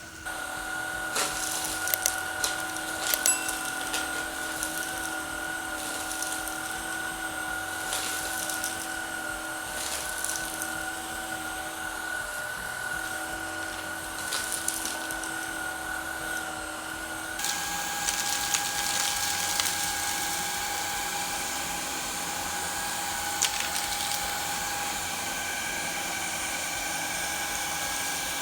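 Shark Rocket cordless stick vacuum running with a steady motor whine, with a few sharp ticks in the first few seconds. About 17 seconds in, the pitch steps up as the vacuum is switched to a higher speed.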